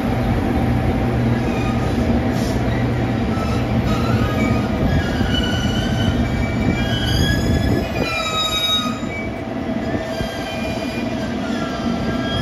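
JR Kyushu 883 series electric train rolling slowly through the station, its wheels and brakes squealing in several high, wavering tones over a low rumble. The rumble drops away in the second half as the train slows.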